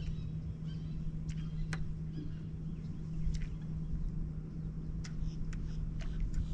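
A boat motor runs steadily with a low hum, while birds give scattered short, high chirps over it.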